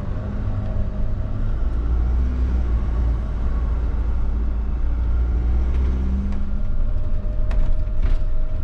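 Fiat Ducato-based motorhome's diesel engine running with a low steady rumble as the vehicle moves off to board. A few sharp clicks come in near the end.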